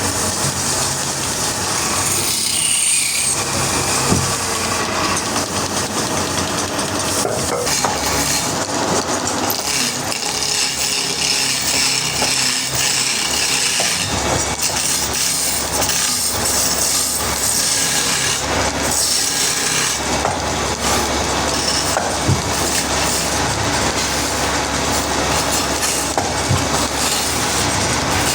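Sawmill saw cutting through a log: steady machine noise with wood being cut. A deep machine hum comes in about halfway through.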